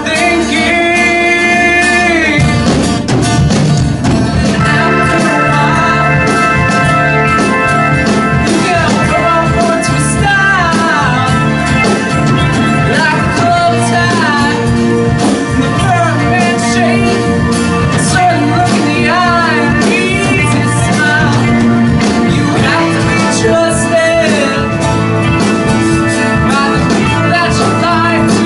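A live rock band playing: a male lead vocal over strummed acoustic guitar, electric guitars and keyboards.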